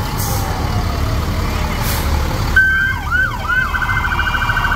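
An emergency vehicle siren sounds about two and a half seconds in: a short held tone, a few quick falling-and-rising sweeps, then a fast warbling yelp, over a steady low rumble of vehicles.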